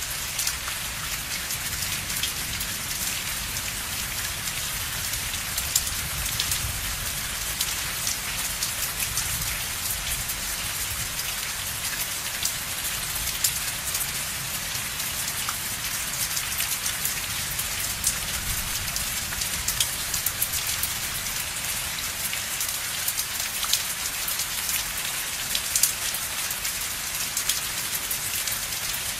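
Steady, continuous rain: a dense patter of many separate drops ticking, with a low steady rumble underneath.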